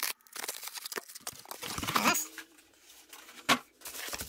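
Cardboard mailer's tear strip being ripped open, then rustling and crinkling of cardboard and a plastic-wrapped box being handled, with a sharp knock about three and a half seconds in.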